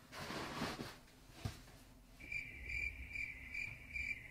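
Cricket chirping sound effect, the stock gag for an awkward silence: a high, even chirp repeating about three times a second that starts about two seconds in. Before it there is faint rustling and a single soft knock.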